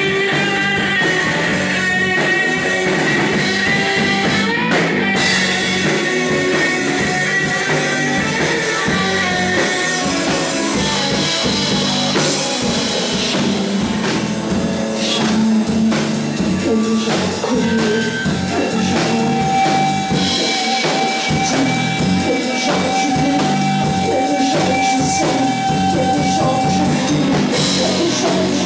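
Live rock band playing: electric guitar over a drum kit, with a long held note in the second half.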